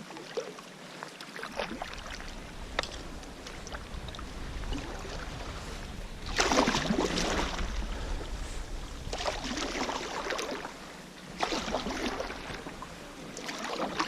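Kayak paddle strokes in the water: the blades dip and pull with a splash about every two and a half seconds in the second half, with small drips and trickles before that.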